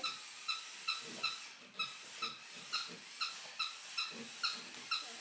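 Squeaky plush toy monkey giving short, high squeaks over and over at an even pace, about three a second. Soft sniffing from a Boston terrier nosing at it comes in between.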